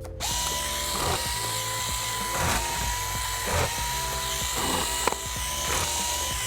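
Electric screwdriver running steadily with a high whine, backing out small laptop bottom-cover screws, with a few brief clicks along the way.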